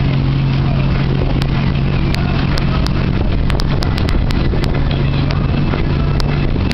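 Towing motorboat's engine running at a steady speed, a constant low drone over the rushing noise of wind and water.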